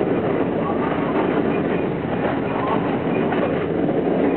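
R42 subway train running at speed, heard from on board: a steady, loud rumble of steel wheels on the rails, with a few faint short squeals above it.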